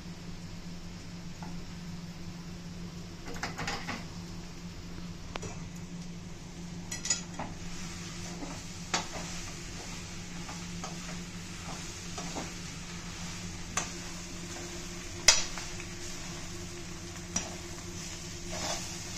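Metal spoon stirring and scraping a thick vegetable-and-potato mash in a metal kadhai on the stove, with scattered sharp clinks of the spoon against the pan, the loudest about fifteen seconds in, over a steady low hum.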